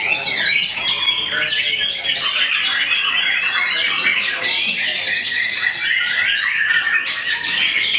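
Many caged songbirds singing at once in a dense, unbroken chorus of rapid chirps, trills and whistles.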